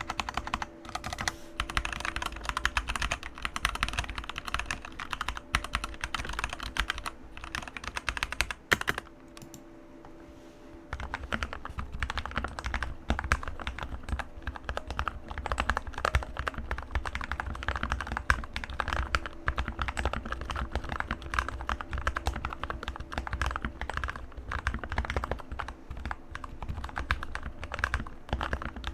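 Fast, continuous typing on a Keychron K2 mechanical keyboard with linear Gateron red switches, key strokes clacking in a rapid stream. It pauses for about two seconds roughly nine seconds in, then resumes.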